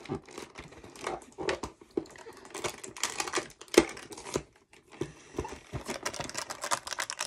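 Cardboard advent-calendar door being pushed in along its perforations and torn open by hand: a string of irregular clicks, taps and crinkling rustles, with one sharper click about four seconds in.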